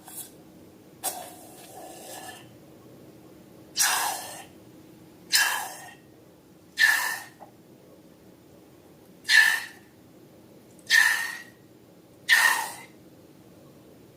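Six short hissing squirts from a balloon being squeezed out, each with a brief squeak, coming about every one and a half seconds after a few softer rustles.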